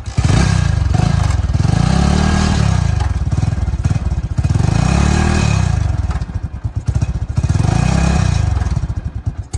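Motorcycle engine revved repeatedly, its pitch rising and falling about every three seconds, then cutting off near the end.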